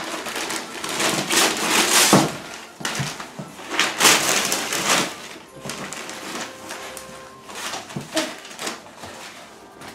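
Wrapping paper being ripped and crumpled by hand, a dense run of tearing and rustling that is loudest for about the first five seconds, then thins to scattered rustles.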